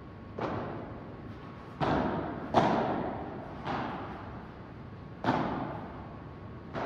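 Padel rally: six sharp hits of the ball, about a second or a second and a half apart, each echoing in a large hall.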